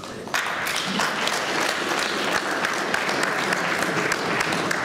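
An audience applauding, a dense patter of many hands clapping that starts about a third of a second in and carries on steadily.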